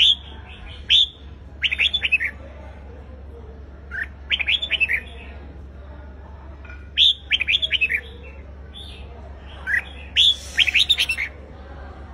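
Red-whiskered bulbul singing its competitive song: about six short bursts of quick, falling whistled notes, separated by pauses of one to two seconds.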